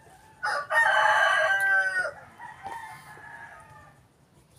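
A rooster crowing once. The crow starts about half a second in and lasts about a second and a half.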